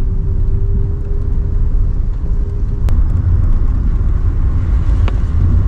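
A van driving on a wet road, heard from inside the cabin: a steady low rumble of engine and tyres, with a faint steady hum that stops about three seconds in and two light clicks.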